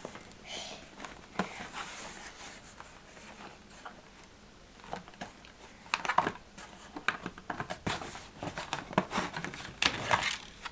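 Fingers scratching and picking at a cardboard box, then the box being opened, with crinkling of packaging: irregular clicks and rustles, busiest about six seconds in and near the end.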